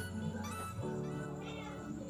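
Background music with held notes over a steady bass line.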